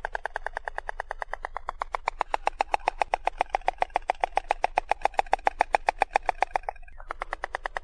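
Stork clattering its bill: a fast, even rattle of clicks that grows louder about two seconds in, stops for a moment near the end, then starts again.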